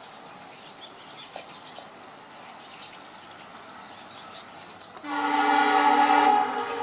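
EMD WDP4 diesel-electric locomotive's air horn sounding one loud blast about five seconds in, a chord of several tones that lasts about a second and a half and dips slightly in pitch as it trails off. Before the blast there is only faint background with high insect-like chirping.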